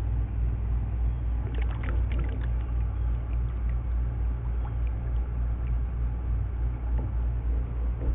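Steady low rumble throughout, with a brief cluster of small splashes and ticks about two seconds in as a rubber-band-wound popsicle-stick paddle boat is let go and its paddle churns the water.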